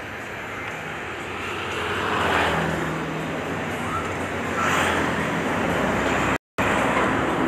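Road traffic going by close at hand: a steady rumble, with two vehicles swelling and fading past, about two seconds in and again near five seconds. The sound drops out completely for a moment near the end.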